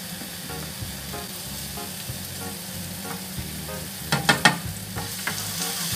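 Cooking oil poured into a hot pan of ground chili spice paste, sizzling as the paste starts to fry. A spatula stirs and scrapes the paste in the non-stick pan, with a quick run of sharp knocks about four seconds in.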